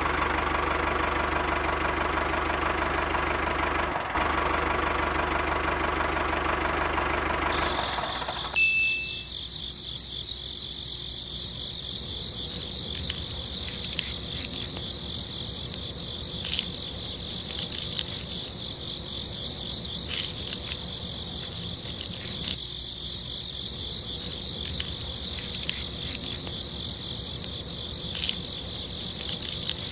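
Small DC hobby motor spinning a miniature chaff cutter's flywheel and blade with a steady whir, which cuts off about eight seconds in. After that, a steady high-pitched insect chirring with a few faint clicks.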